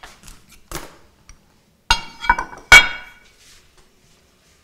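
Ceramic plates and kitchenware clinking and knocking: several sharp clinks, the loudest near three seconds in, with a brief ring.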